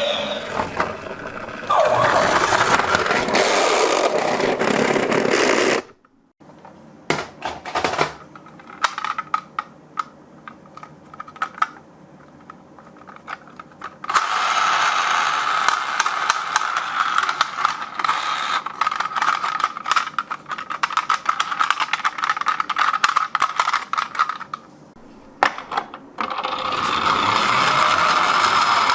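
Small toy vehicles' wheels and mechanisms running, with clicking and rattling. A loud stretch at the start cuts off suddenly into scattered clicks. About halfway through there is a steady whir with clicking lasting around ten seconds, and the loud run returns near the end.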